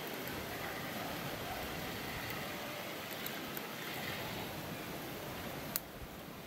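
Spinning reel being wound in a steady whir as a wobbler is retrieved, stopping with a sharp click near the end.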